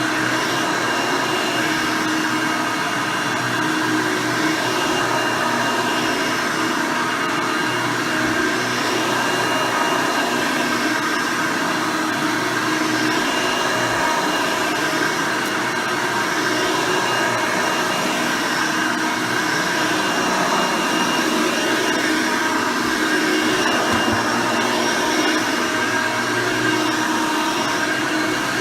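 1991 Hoover Elite II 6.0 soft-bag upright vacuum cleaner running steadily while vacuuming: its 6-amp motor and nine-blade fan make a constant rushing drone with several steady tones, the brush roll turning.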